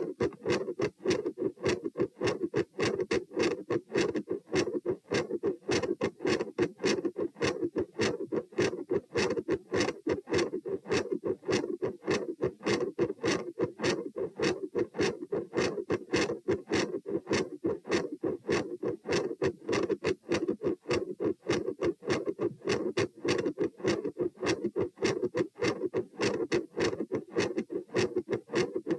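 Human heartbeat heard at the chest, a steady regular rhythm of beats with a loud murmur running between them.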